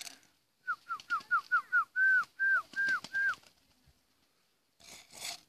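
A series of about nine clear whistled notes, each sliding down in pitch: five short, quick ones followed by four longer, slower ones.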